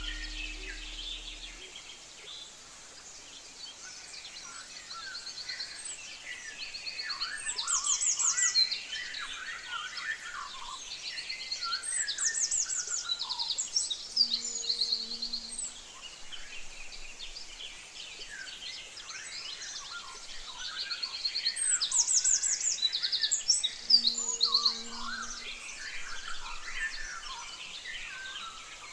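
A chorus of songbirds, several birds singing at once with fast high trills and scattered chirps that swell and fade in waves. The last of a low ringing tone dies away in the first second or two.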